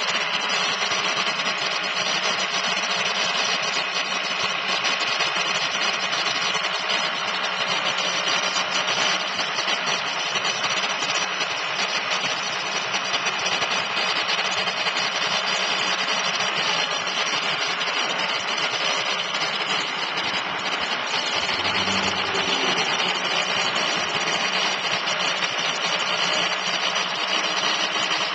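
2007 Ford LCF cab-over truck running with its hydraulic system driving the 21-foot Jerr-Dan rollback bed, which tilts and slides back; a steady machine whine with no breaks.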